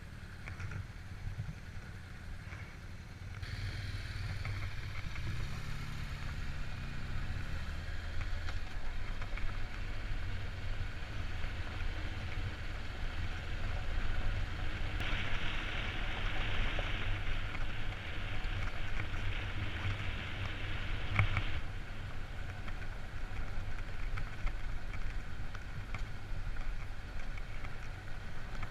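Engine of a vehicle being ridden, running steadily; its pitch climbs a few seconds in as it picks up speed. A louder hiss of tyres or wind runs from about 15 to 21 seconds in.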